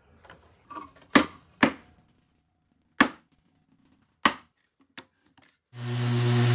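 A hammer drives a thin nail into the corner joint of a wooden drawer: a few light taps, then four sharp blows spaced out over about three seconds and one lighter one. Near the end a random orbital sander starts up and runs steadily.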